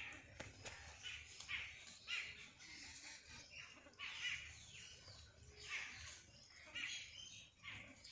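Birds chirping: a run of short, high calls repeating every half second or so.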